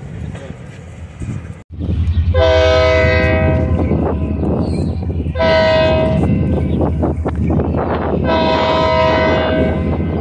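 Union Pacific diesel freight locomotive's air horn sounding three blasts, long, short, then long, over the steady low rumble of the locomotive. The rumble comes in abruptly just before the first blast.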